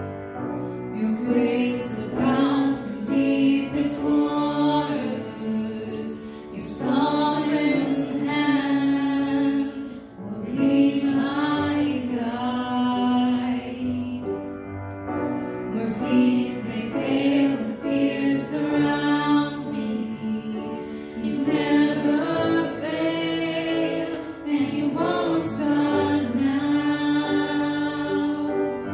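Worship song sung by several voices with instrumental accompaniment.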